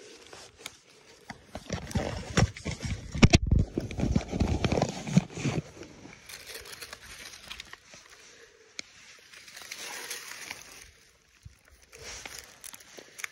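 Handling noise on the camera's microphone as it is bumped and rubbed, with dry leaves rustling and crunching. The heaviest thumping comes about two to six seconds in, then lighter rustling.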